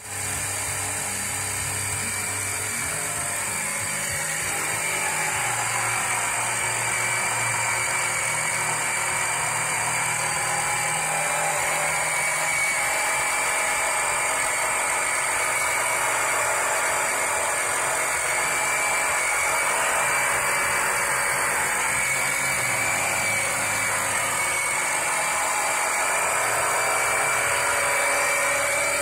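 Small 12 V electric oil pump running continuously with a steady high-pitched whine and a motor buzz.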